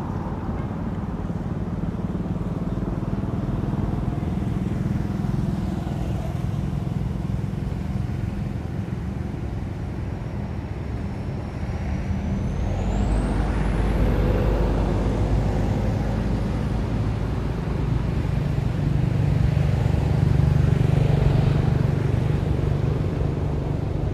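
Road traffic running past in a steady low rumble, swelling as vehicles pass about halfway through and again near the end.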